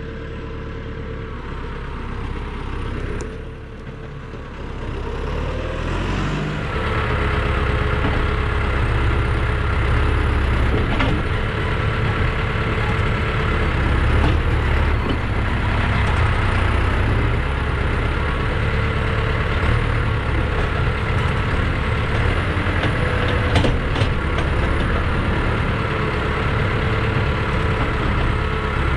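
Diesel tractor engine running, its revs rising about six seconds in and then holding steady under work.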